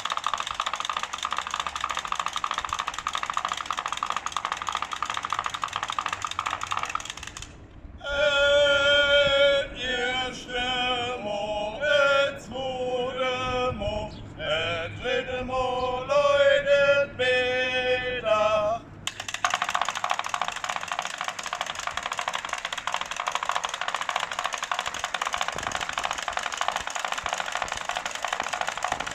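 Wooden Easter clappers (Klappern) rattling fast and continuously in place of the church bells, stopping after about seven seconds for a voice to chant the traditional sing-song noon call, then rattling on again.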